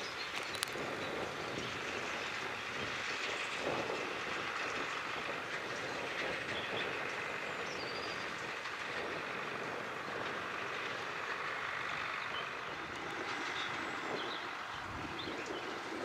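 Massey Ferguson 390 tractor's four-cylinder Perkins diesel running steadily under load as it pulls a twin-rotor rake turning cut grass, the engine blended with the rake's continuous clattering rattle.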